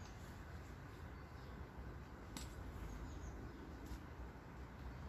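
Lakeside ambience: faint bird chirps over a low steady rumble, with two sharp clicks from fishing tackle being handled, about halfway through and again a second and a half later.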